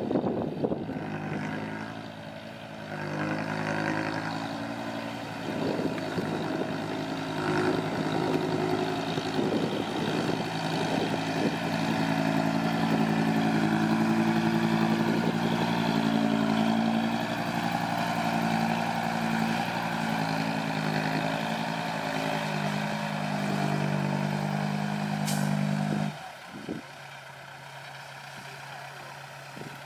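Heavy diesel machinery engine running hard, with scattered knocks and clatter over the first dozen seconds. About 26 s in it drops abruptly to a quieter, steady idle.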